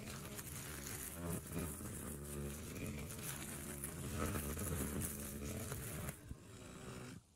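Two-stroke engine of a wheeled push-type string trimmer running steadily while cutting grass with its nylon line, heard from a distance. The sound drops away about six seconds in.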